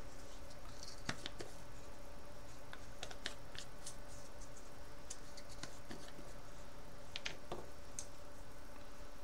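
Scattered light clicks and taps of small hobby items (paint jars, brush) being picked up and set down on a cutting-mat desk, over a steady low electrical hum.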